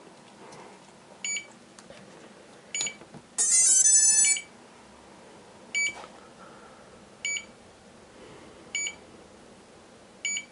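FrSky Taranis Plus radio transmitter beeping in bind mode: a short, high electronic beep about every one and a half seconds. About a third of the way in, a louder run of several changing tones sounds for about a second.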